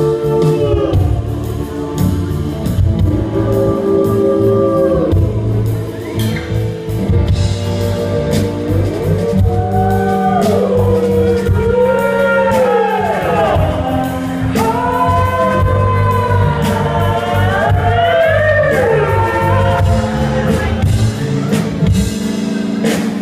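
Live band playing a song: acoustic guitars, electric bass and drums, with a gliding sung melody and fiddle.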